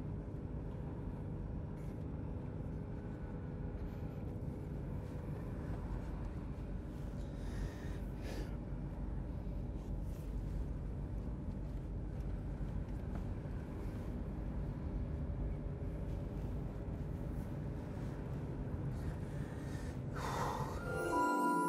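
Steady low road and engine rumble inside a moving car's cabin, with a few quiet sniffs and breaths from a man crying at the wheel. Near the end a rising whoosh leads into music.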